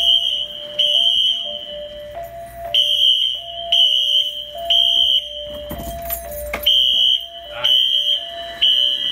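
Building fire alarm sounding its evacuation signal: loud high-pitched horn blasts in repeating groups of three with a short pause between groups (the temporal-3 pattern), over a lower tone that steps back and forth between two pitches.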